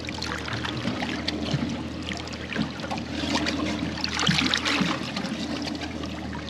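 Water trickling and splashing on a boat in small irregular bursts, over a steady low hum.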